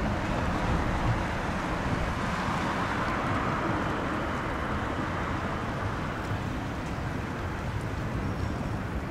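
Steady outdoor traffic noise with wind rumbling on the microphone, as a Stadler Citylink tram-train rolls away along the track, growing slightly fainter.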